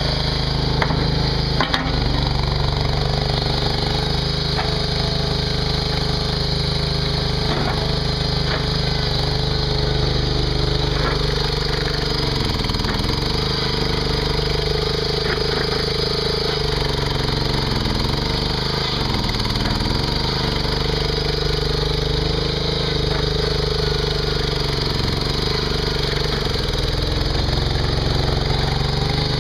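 Mini skid steer's engine running at a steady speed while it works dirt, with scattered clunks and knocks from the machine and its load.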